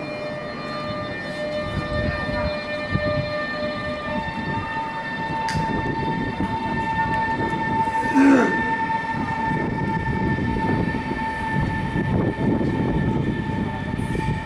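CRH5 high-speed electric trains moving through a station, with a rolling rumble and a steady high whine that comes in about four seconds in and holds as one train arrives alongside the platform. A short, loud sound stands out about eight seconds in.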